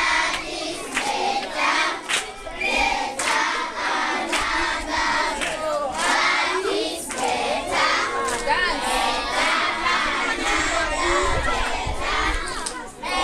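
A large group of children shouting and cheering together, many voices at once.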